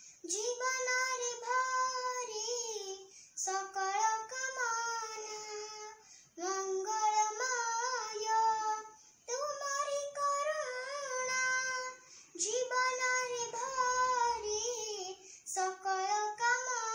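A young girl singing solo and unaccompanied. The song comes in phrases of about three seconds each, with held, wavering notes and a short breath between phrases.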